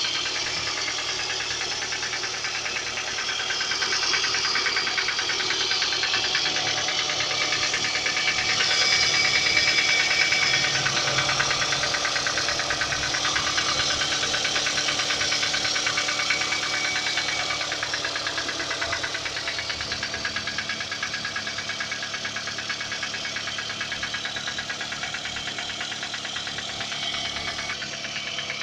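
Toyota Camry XV30 engine running cold with a steady, rapid knocking over its idle, which the owner likens to a train and says goes away once the engine warms up. The knock grows a little louder for a while and then settles.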